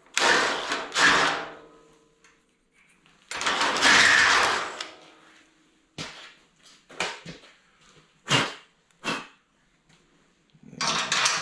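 Cordless drill run in two short bursts through the bolt holes of a steel frame bracket, opening up holes that are a little snug, followed by a few sharp metal clinks of bolts being handled.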